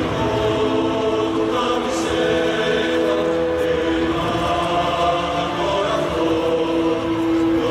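Many voices singing together in long, held, choir-like notes that change pitch every few seconds, carrying through a stadium.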